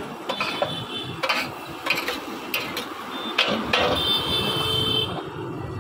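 A metal spatula scraping and clanking against a wide black metal pan as a big batch of fish eggs is stir-fried, with several sharp strikes at uneven intervals.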